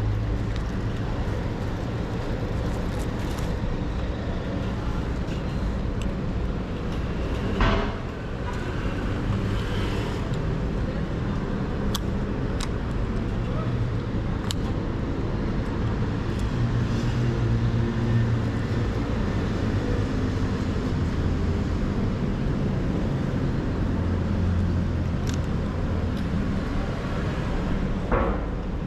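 Triumph Bonneville T100's parallel-twin engine running steadily, its exhaust close to the microphone, with a short louder burst about eight seconds in and again near the end.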